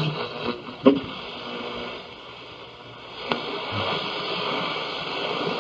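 Hissing static of a degraded, radio-like recording, with a sharp click about a second in and a fainter one a little past three seconds.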